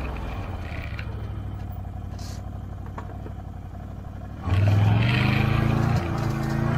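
Can-Am Outlander XMR 650 ATV's V-twin engine running steadily at low speed, then the throttle opens about four and a half seconds in and the engine revs up, louder and rising in pitch, easing slightly near the end.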